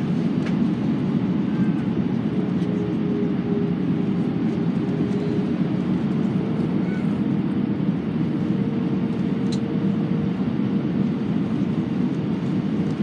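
Steady cabin noise of a jet airliner on approach, heard inside the cabin at a window seat over the wing: an even rumble of engines and airflow with a faint steady hum above it.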